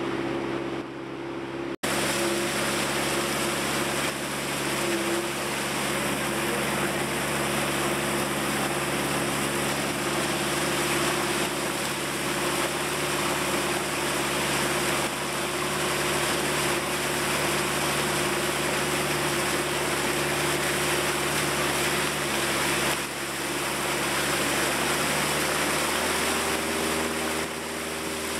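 Riverboat engine running at a steady pitch under a rush of wind and water noise, with a brief cut-out about two seconds in; the engine note shifts slightly about three-quarters of the way through.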